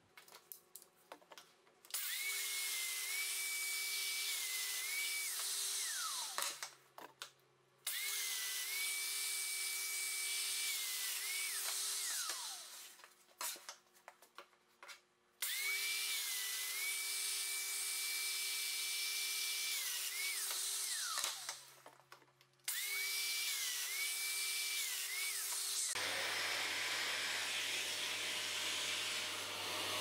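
Festool Domino joiner cutting mortises, four times in a row: each time the motor spins up to a steady high whine over the rush of the dust extraction, dips briefly in pitch as the cutter plunges into the wood, then winds down with a falling whine. Near the end a steady rushing sound with a low hum runs on by itself.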